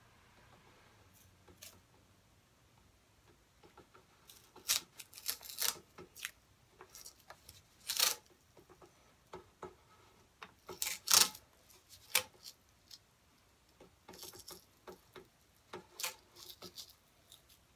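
Masking tape pulled off the roll in short crackling pulls and pressed into place, in irregular bursts that begin a few seconds in, the loudest near the middle.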